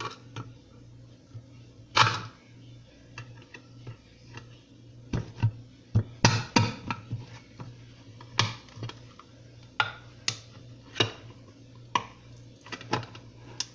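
Irregular sharp clicks and knocks of kitchen items being handled, about a dozen scattered through, the loudest around two seconds in and between six and seven seconds in, over a faint steady low hum.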